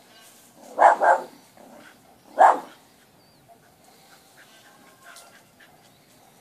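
West Highland White Terrier barking: three barks, two in quick succession about a second in and one more about a second and a half later.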